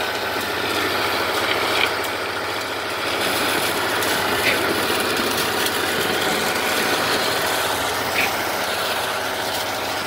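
Diesel engine of a concrete boom pump truck running steadily while it pumps concrete.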